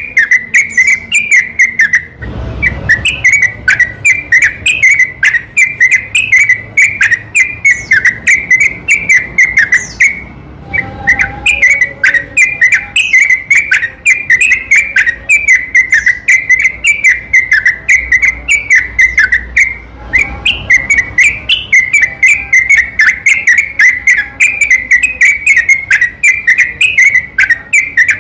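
Yellow-vented bulbul (trucukan) singing non-stop: a rapid, bubbly run of liquid whistled notes, several a second, played as a looped lure recording to provoke other bulbuls into song. The run breaks briefly about 2, 10 and 20 seconds in, where the recording is joined.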